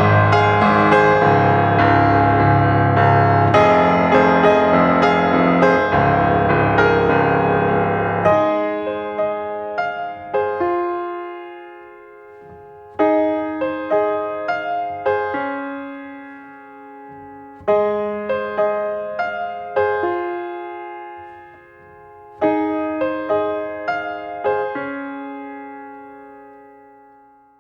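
Background piano music: full chords for the first eight seconds or so, then a gentler melody in separate phrases of single notes that ring out and fade, dying away near the end.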